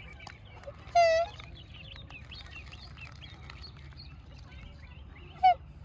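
Black swan giving two loud calls, a longer one about a second in and a short falling one near the end, over a constant twitter of faint chirps and a low rumble.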